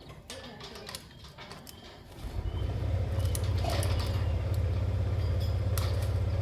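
Faint clicks and rustles, then about two seconds in a loud, steady low motor hum with a fast flutter starts up and keeps going.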